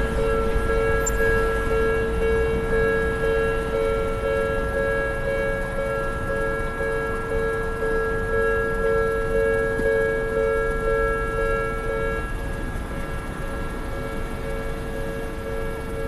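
Japanese railway level-crossing alarm ringing, an evenly repeating electronic bell tone. About twelve seconds in, one of its pitches drops out and the alarm carries on with the remaining tone.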